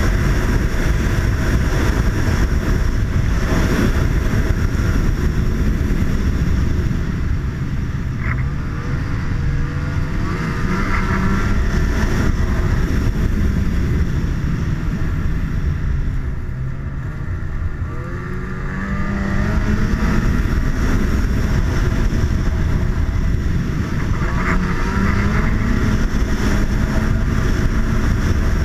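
Snowmobile engine running under throttle as the sled travels a snowy trail, heard from the rider's seat. The engine note sags and quietens about two-thirds of the way through as the throttle eases off, then climbs again as the rider speeds back up.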